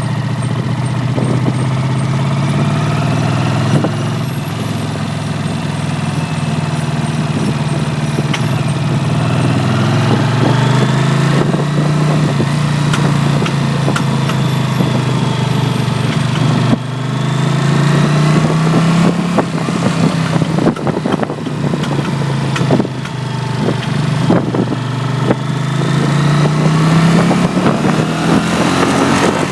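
Honda CX 500 motorcycle's water-cooled V-twin engine, speeding up and easing off several times, with many short sharp cracks and pops on the overrun whenever the throttle is closed and the bike coasts.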